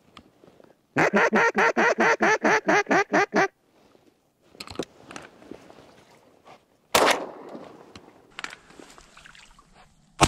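A duck call blown in a quick run of about a dozen evenly spaced quacks. A loud bang comes about seven seconds in, and a sharper shotgun shot right at the end.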